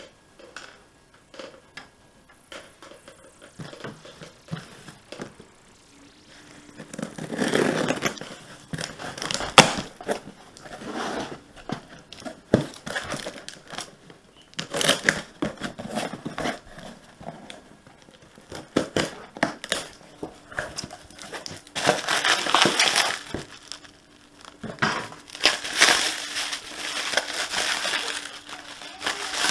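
Cardboard box and plastic packaging being handled: irregular crinkling and rustling with scattered knocks and clicks. It begins about seven seconds in, after a few faint ticks, and comes in several bouts.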